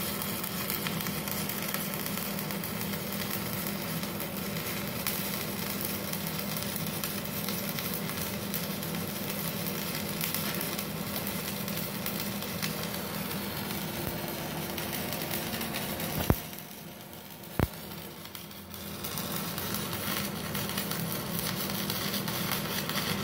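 Stick-welding arc crackling and sizzling steadily as an LB low-hydrogen electrode burns at 96 amps on a MultiPro MMA 400 inverter welder with its voltage reducing device (VRD) switched on. About sixteen seconds in the arc drops out, two sharp snaps follow as the rod is struck again, and the crackle comes back a couple of seconds later, the harder start that comes with the VRD.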